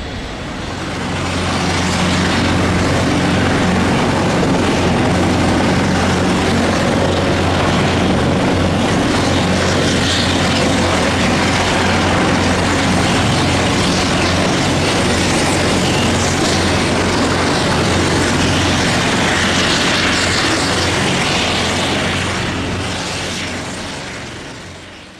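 Military helicopter turbines and rotors at close range, a Navy SA365 Dauphin hovering low beside an H225M Caracal, making a loud, steady rush over a low hum. It gets louder about a second in and fades out near the end.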